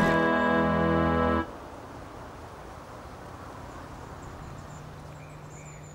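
Theme music ending on a long held chord that cuts off about a second and a half in, followed by faint, even outdoor background noise.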